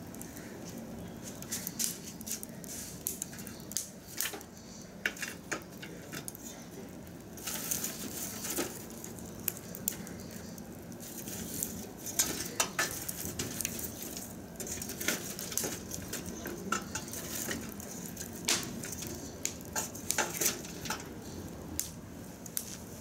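Wood fire of dry branches burning in a metal drum, crackling with irregular sharp pops and snaps.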